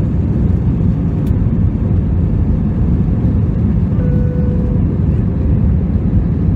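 Steady low roar of an Airbus A320's engines and airflow heard inside the cabin, with a brief single tone about four seconds in.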